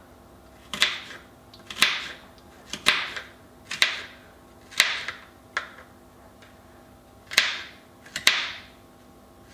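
A small serrated kitchen knife chopping carrot on a plastic cutting board: single sharp knocks of the blade against the board, about one a second, with a longer pause about two-thirds of the way through.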